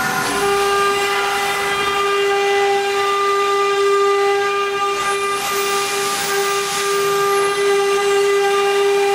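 A wood CNC router's 3.0 kW spindle running at about 24,000 rpm, a steady high whine with a long row of overtones, as the bit cuts into a wooden board. A hiss of cutting rises over the whine about halfway through and fades again.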